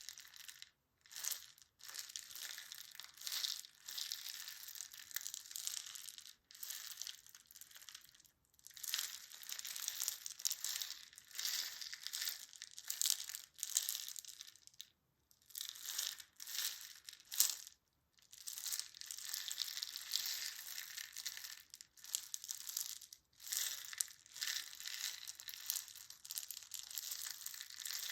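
Close-up crinkling and crunching noises in irregular bursts with brief pauses between them, the crisp sound of something being crushed or crumpled by hand.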